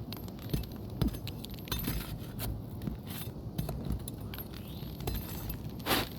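Light metallic clinks, taps and jingles of roofing tools and nails being handled during shingle repair work on the roof, with a brief louder scrape just before the end.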